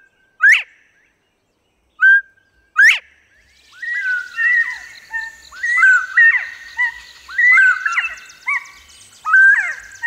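Northern bobwhite song, the clear whistled "bob-white": a short note and then a sharp upslurred whistle, heard twice in the first three seconds. From about four seconds in comes a busier run of overlapping bobwhite whistles, with a faint high chorus behind.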